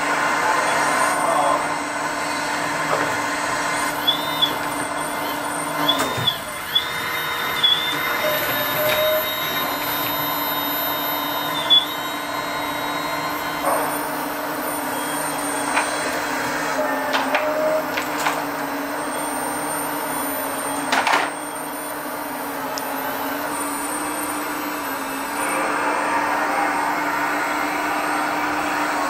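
Hydraulic pump of a scale RC excavator running steadily with a constant hum, the hiss of oil flow swelling as the boom and grapple move. A few sharp clacks come from the grapple and stones.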